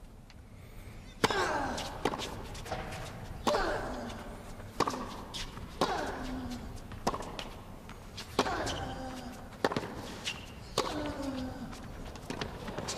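Tennis rally on a hard court: racket strikes on the ball about every 1.2 seconds, starting about a second in with the serve, about ten shots in all. Several shots come with a short falling grunt from a player.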